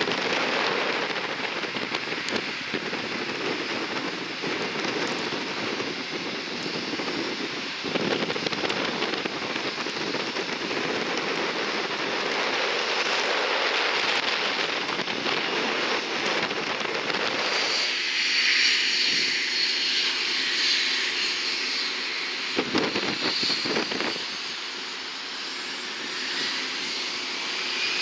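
Jet aircraft engines running with a steady loud rush. A high whine comes in about two-thirds of the way through, and near the end a whine climbs in pitch as the engines spool up.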